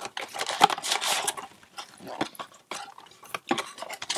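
Cardboard Magic: The Gathering booster boxes being handled and opened by hand: a busy run of rustling, scraping and light irregular knocks and taps of cardboard.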